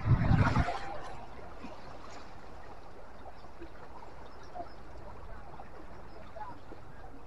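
A brief loud gust of wind on the microphone at the start, then a steady rush of wind and sea water washing over the rocks.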